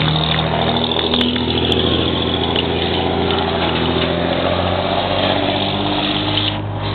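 Street traffic: a motor vehicle engine running steadily close by as cars drive past, with a low, even hum that eases off near the end.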